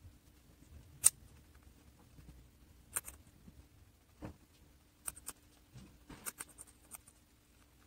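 Guinea pig biting and chewing crunchy raw vegetables: a sharp crunch about a second in, another around three seconds, then a quick run of several crunches between about five and seven seconds.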